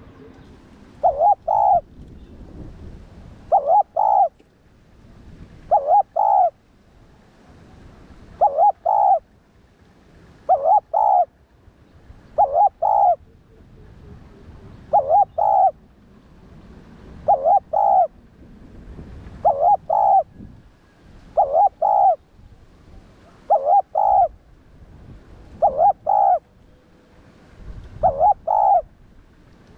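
Spotted dove cooing: short phrases of two or three notes, repeated about every two seconds.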